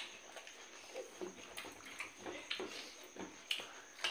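Several people eating by hand: chewing and lip-smacking, with small irregular clicks from fingers tearing roti and touching steel plates, a few per second.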